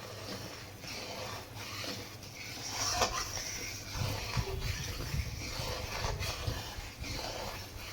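Sugar syrup boiling in a pan, bubbling and popping irregularly as it begins to froth, with more crackle and rumble from about three seconds in.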